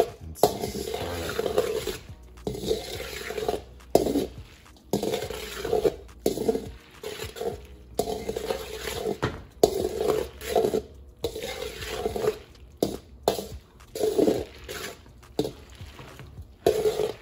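Spoon stirring and tossing cooked macaroni in a large metal mixing bowl. It makes irregular scraping strokes and clinks against the bowl, with a few sharp knocks.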